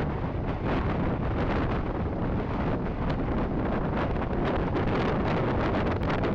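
Wind buffeting the microphone, a steady low rush, with footsteps swishing through dry pasture grass.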